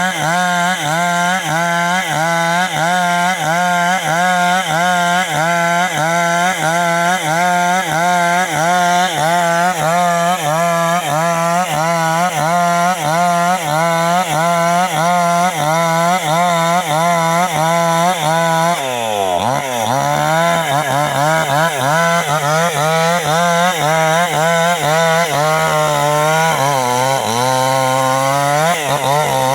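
Mini chainsaw cutting lengthwise through a young teak log, its engine pitch wavering up and down in a steady rhythm as the bar works through the wood. About two-thirds of the way through, the engine drops sharply in pitch and then revs back up.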